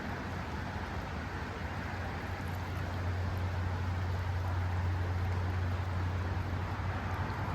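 Wind rumbling on the camera's built-in microphone over the steady rush of river water; the low rumble swells about two and a half seconds in.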